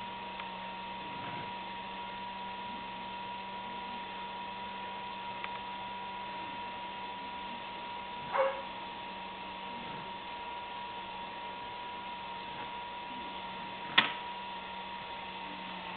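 Motor of an automatic self-cleaning litter box turning its globe, a steady low hum with a thin whine, as the rotating drum sifts clumps out of the litter during its cleaning cycle. A brief soft noise comes about eight seconds in and a sharp click near the end.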